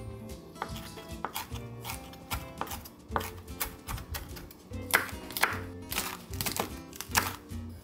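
Kitchen knife chopping vegetables (carrot, perilla leaves, green chili) on a wooden cutting board in a run of quick, uneven strikes, over background music.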